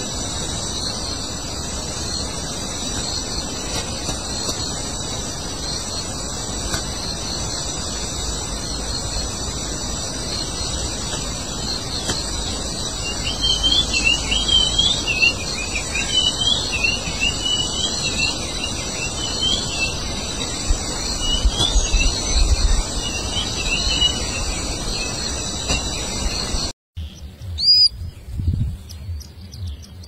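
Small birds chirping in a quick run of short rising and falling notes over a steady insect hum. About 27 s in, the sound cuts abruptly to a different, quieter recording with a few sharp high chirps.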